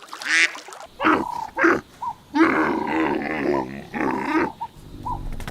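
A duck quacks once, then, about a second in, a different animal gives a run of calls lasting a few seconds.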